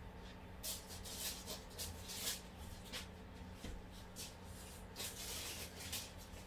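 Soft, irregular rustling and brushing sounds, one or two a second, over a faint steady hum.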